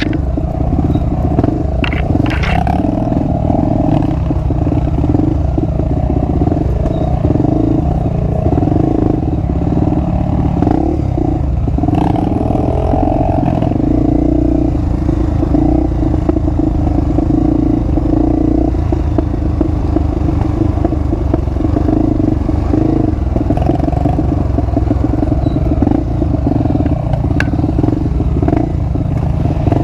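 Honda XR250 Tornado's single-cylinder four-stroke engine running steadily through an aftermarket exhaust as the motorcycle is ridden on a dirt trail, with occasional rattles and knocks from the rough ground.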